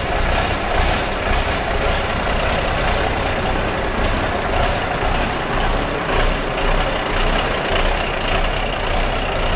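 Big Bud 600/50 tractor's diesel engine running steadily just after starting, with a deep rumble.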